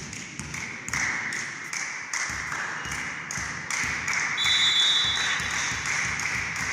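A referee's whistle blows once, briefly, about four and a half seconds in, during a volleyball match in a sports hall. Irregular sharp taps and knocks run throughout, over the hall's steady hiss.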